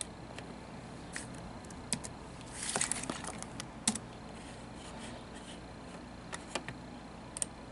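Computer keyboard and mouse clicks: scattered single clicks, with a quick run of keystrokes about three seconds in, as a comment is entered and posted.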